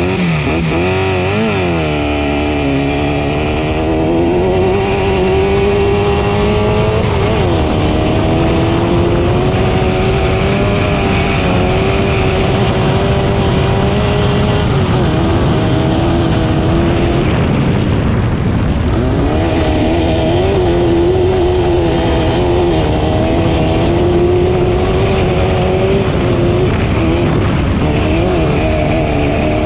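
Off-road race vehicle's engine at race pace during a qualifying run, its pitch climbing and falling with the throttle, with sharp drops in revs about a quarter of the way in and again about two-thirds through.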